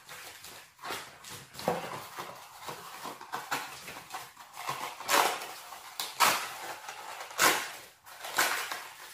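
Packaging being handled while items are unwrapped: corrugated cardboard sleeves and plastic air-cushion wrap rustling and crinkling in a run of short scraping crackles, the loudest in the second half.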